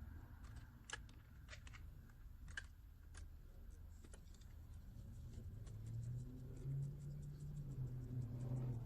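Light, scattered clicks and taps of hand tools and bolts on metal during engine reassembly, with a low hum that swells about six seconds in.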